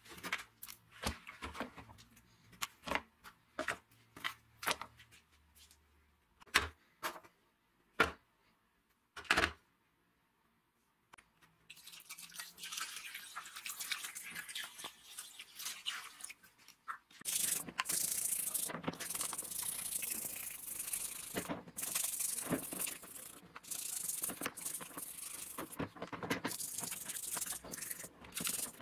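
Scattered clicks and knocks of grinder parts being handled in a tub of soapy water. About twelve seconds in comes a steady hiss of water being poured over the greasy gear housing. About seventeen seconds in, a brush starts scrubbing the angle grinder's motor housing in soapy water, louder and scratchy.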